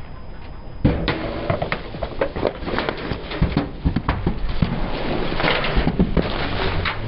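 Aluminium soda cans crushed one after another under a slowly rolling car tyre. A sudden crack comes about a second in, then a run of crunches and pops with the hiss of soda spraying out as the cans burst.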